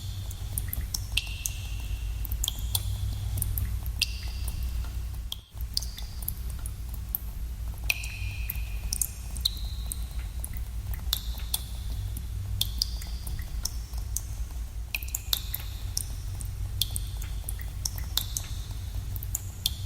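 Water drops plinking into a pool in a cave, irregular and several a second, each with a short ringing, echoing tone, over a steady low rumble. The sound drops out for a moment about five and a half seconds in.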